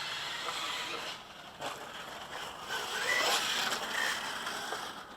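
Electric-converted OFNA LX1 1/8-scale RC buggy driving: its electric motor whines, rising and falling in pitch around three seconds in. Under it is a steady hiss of tyre noise with a few knocks.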